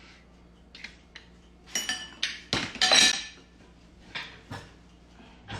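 Utensils and dishes clinking while pasta is plated: a string of separate knocks and clinks, one near two seconds in with a short ringing tone, the loudest around three seconds in.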